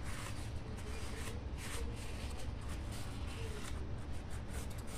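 Light, irregular rustling and scraping as hands work on the opened laptop's parts, over a low steady hum.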